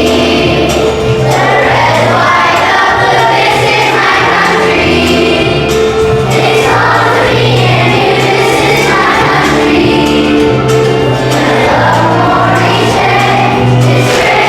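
A children's choir singing a song over instrumental accompaniment with sustained bass notes.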